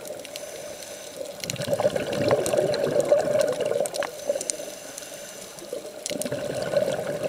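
Water rushing and sloshing around a camera held underwater, with scattered sharp clicks. It swells louder about one and a half seconds in, eases off, and rises again near the end.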